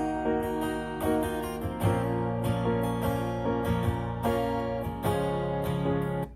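Acoustic backing track of strummed guitar with a beat, played back through a portable Bluetooth speaker; the music cuts off near the end.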